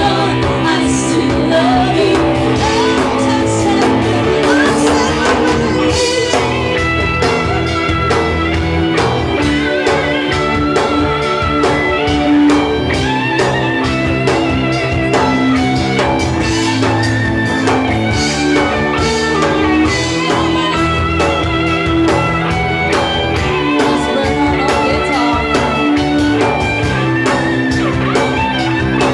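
A live band playing amplified music, with electric guitars and a drum kit keeping a steady beat and a woman singing into a microphone.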